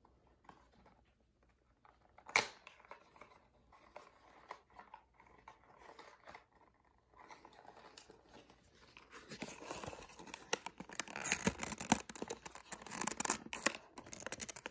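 Packaging of a small diecast model van being handled and pried at: a sharp click a couple of seconds in, then, from about nine seconds on, dense crinkling, rustling and scraping of packaging with many small clicks as the model, stuck fast, is worked out of its box.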